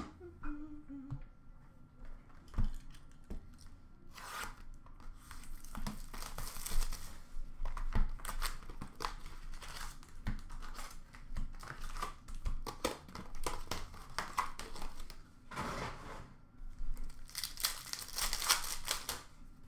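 Packs of 2020-21 Upper Deck Metal Universe hockey cards being torn open, their wrappers crinkling, with the cards shuffled and tapped in between. Louder rips come about four seconds in, again around six to seven seconds, and twice near the end.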